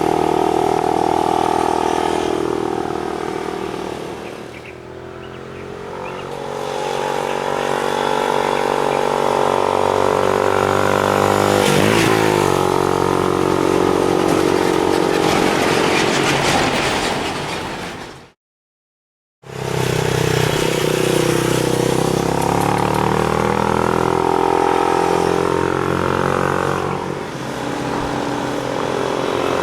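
Benelli Imperiale 400's single-cylinder engine running, its exhaust note falling and rising with the throttle. It drops back about five seconds in, then climbs again. Just past the middle the sound cuts out completely for about a second, then the engine resumes.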